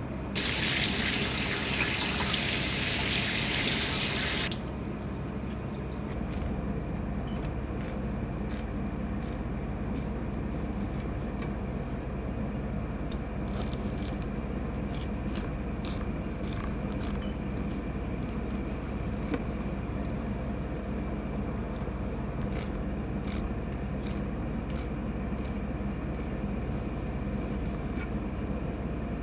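A tap runs into a steel sink for about four seconds and then shuts off. After that a knife filleting Pacific saury on a plastic cutting board makes faint, scattered clicks and scrapes over a steady low background hum.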